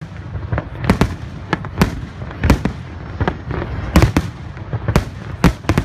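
Fireworks display: about a dozen sharp bangs at irregular intervals, several in quick pairs, over a low background rumble.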